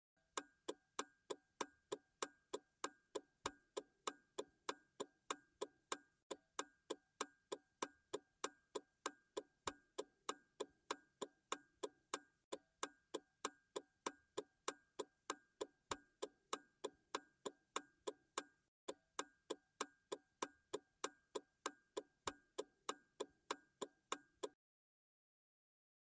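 Car turn signal ticking in an even rhythm, about two clicks a second. It stops shortly before the end.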